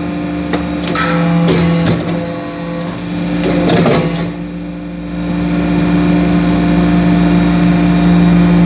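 Metal-chip briquetting press running, with a steady hum from its motor and hydraulic pump. Sharp knocks come in the first two seconds, and a clatter comes about 3.5 to 4 seconds in as the ram works in the loose metal chips. After that the hum runs on steadily, a little louder, with a low rumble.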